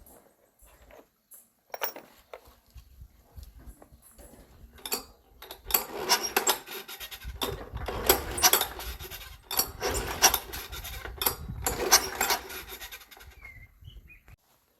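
Hand tools and metal parts clinking, knocking and scraping during repair work on a tiller. A few scattered clicks at first, then a busy run of clinks and scraping from about halfway through that stops near the end.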